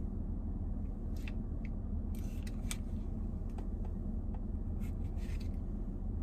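Steady low rumble with a few faint clicks and scrapes scattered through it, the loudest around one second in and between two and three seconds in.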